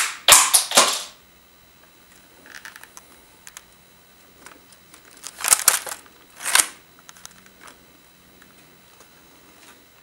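LEGO brick-shooter model of an ORSIS T-5000 sniper rifle firing with a sharp snap at the start, followed by about a second of plastic clattering. About halfway through come faint clicks, then two louder plastic rattles as the model is handled.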